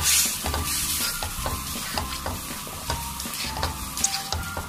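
Sauce-coated boiled macaroni sizzling as it is stir-fried in a pan, a black spatula stirring and scraping through it with frequent short scrapes and clicks.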